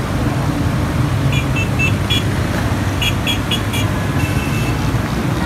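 Steady rumble of traffic driving through a flooded street. Over it a vehicle horn toots in two quick runs of about four short beeps, then gives one longer beep near the end.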